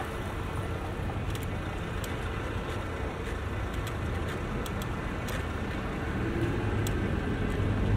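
City street ambience: a steady low rumble of road traffic with a few faint clicks, growing slightly louder near the end.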